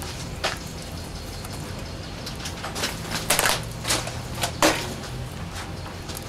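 Burning paper crackling and rustling as it is laid on charcoal briquettes to light them, with scattered sharp crackles, the loudest about three and a half and four and a half seconds in, over a low steady background hum.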